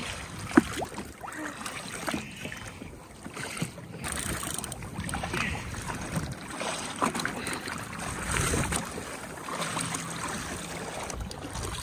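Wind and choppy water slapping around a Sea-Doo Trophy fishing jet ski, rising and falling unevenly, with one sharp knock about half a second in.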